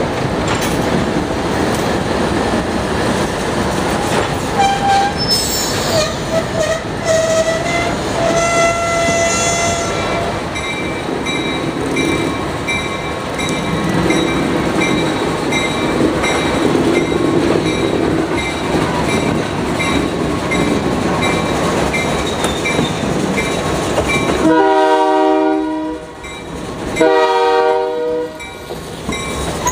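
Alco diesel locomotives running slowly along the track with a steady engine rumble and wheel noise, with thin squealing tones from the wheels for several seconds about five seconds in. Near the end the locomotive horn sounds two blasts, each about a second and a half long.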